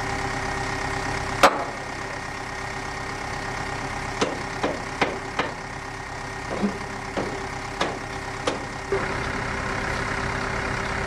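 Sharp metal knocks from a hand tool striking an iron rod on a steam locomotive being dismantled: one loud knock about a second and a half in, then about nine lighter, irregular knocks. A steady machine hum runs underneath.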